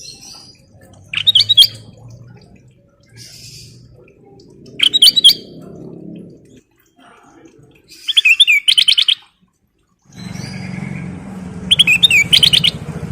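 A kutilang emas bulbul singing four short whistled phrases a few seconds apart, the third a quick run of repeated notes. A low steady rumble comes in under the last few seconds.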